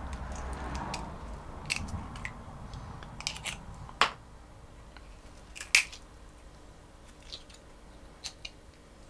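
Stainless-steel pick clicking and scraping against cooked crab claw shell as the meat is worked out, in scattered small clicks. Two sharper clicks, about four and six seconds in, are the loudest.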